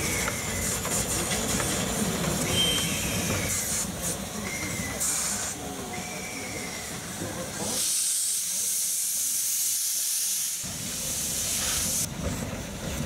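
Blanc-Misseron 020+020 Mallet steam tank locomotive letting off a loud hiss of steam for about four seconds, starting about eight seconds in, as it sets off on its own.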